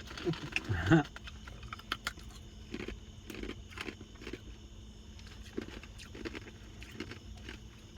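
A voice sounds briefly in the first second, then a person chews food with soft mouth sounds and small scattered clicks over a steady low hum.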